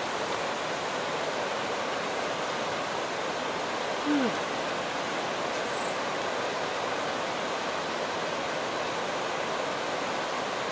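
Steady rushing of the Selway River's white water. About four seconds in, a short falling call cuts through briefly, the loudest moment.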